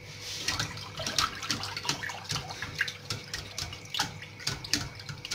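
A whisk beating a milk and cornstarch mixture in a stainless steel saucepan: continuous liquid sloshing with quick, irregular clicks of the whisk against the pot. The mixture is heating on the stove and starting to thicken.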